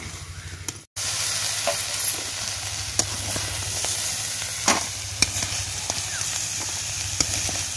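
Crab pieces sizzling as they fry in oil in a metal kadai, stirred with a metal spatula that scrapes and clicks against the pan a few times. The sound drops out briefly about a second in, then the sizzling carries on steadily.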